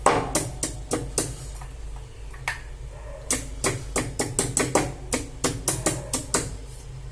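Pestle pounding fresh ginger and cinnamon in a mortar, crushing them to a paste: repeated sharp strikes about three a second, with a short lull about two seconds in.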